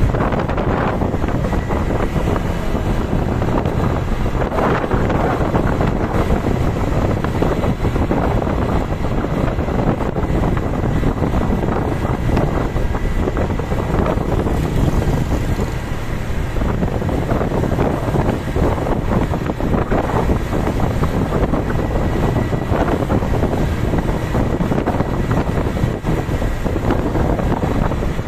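Steady rumble of a moving vehicle with wind buffeting the microphone; no horn melody is heard.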